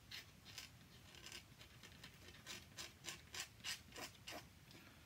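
Steel dip-pen nib scratching across paper as ink strokes are drawn: a run of short, faint scratches, about three a second.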